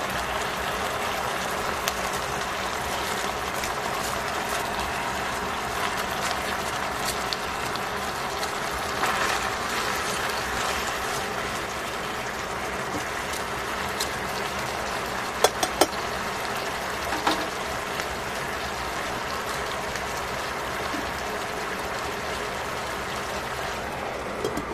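Pork and vegetables sizzling steadily in a stainless steel pot. Metal tongs click sharply against the pot a few times in the middle, and a glass lid clinks onto the pot near the end.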